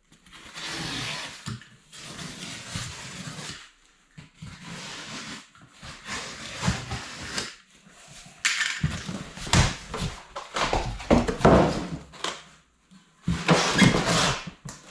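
A large cardboard shipping box being slit open with a utility knife and unpacked, with cardboard scraping and rustling. In the second half the flaps are pulled open and the foam-wrapped steel part inside is handled, giving louder rustles and knocks.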